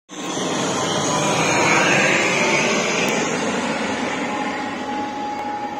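Twin turboprop airliner passing low on its approach to land: a steady engine and propeller roar with a thin steady whine, loudest about two seconds in and then slowly fading.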